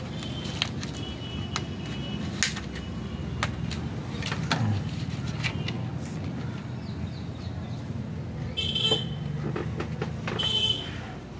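Clicks and crinkles of a rigid clear plastic blister pack for camera lens protectors being handled and opened, with two louder squeaky scrapes of the plastic about nine and ten and a half seconds in. A steady low rumble runs underneath.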